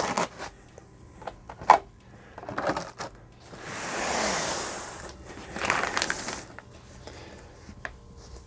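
Handling noises of a portable projector and its packaging being set into a padded carry case: a few light knocks, then a longer rustling scrape lasting about a second and a half near the middle and a shorter rustle after it.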